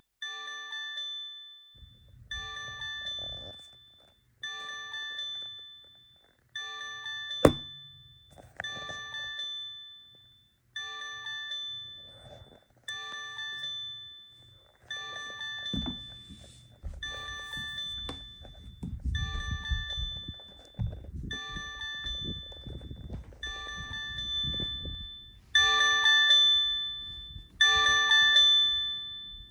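A bell-like electronic chime repeating about every two seconds, each ring dying away before the next, with the last few louder. A low rumble sits underneath from about halfway, and there is one sharp click about seven seconds in.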